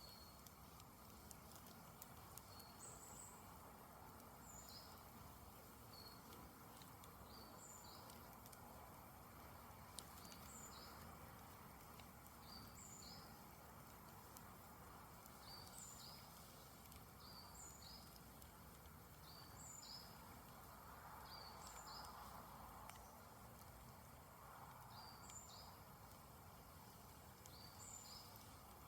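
Very faint campfire burning down, with a steady low hiss and an occasional sharp pop. Over it a bird repeats short high chirps every second or two.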